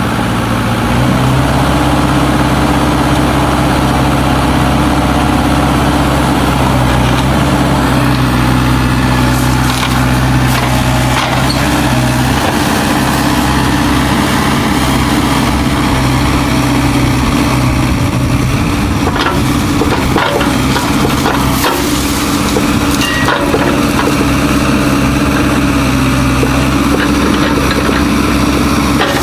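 Kubota U-45 mini excavator's diesel engine running under load while it digs out tree roots, its note stepping up and down a few times. Sharp cracks and snaps of roots and wood breaking come through now and then, most of them in the middle and later part.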